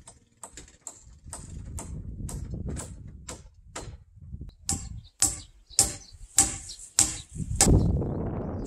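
Hammer blows on old wooden roof rafters, about two a second, getting louder and sharper after the halfway point, followed by a heavy low thud near the end.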